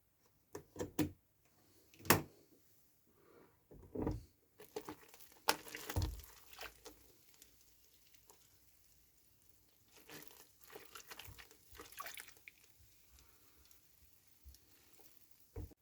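Light workshop handling sounds: scattered single knocks and clicks, then a cluster of quick rustling clicks near the middle, with quiet stretches between.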